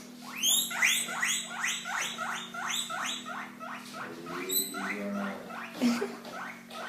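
Guinea pig wheeking: a rapid run of shrill, rising squeals, about three a second, growing fainter in the second half. This is the call guinea pigs make to beg for food when hungry.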